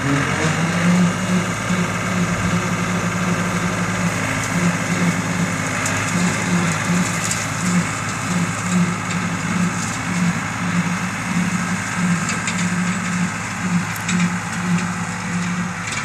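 John Deere utility tractor's diesel engine running steadily while it drives a rear-mounted rotary cutter (brush hog) mowing rough grass.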